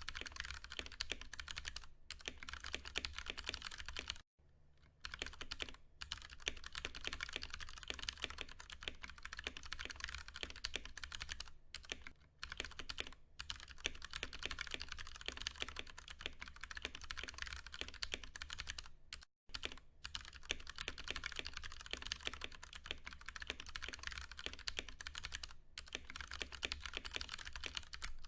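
Fast, continuous typing on a Ducky One 2 Mini mechanical keyboard with tactile Cherry MX Brown switches: a dense run of keystrokes, broken by a short pause about four seconds in and a brief one a little after halfway.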